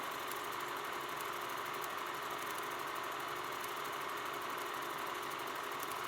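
A steady droning hum with hiss, even and unbroken, with no beat and no voice: an ambient intro between songs.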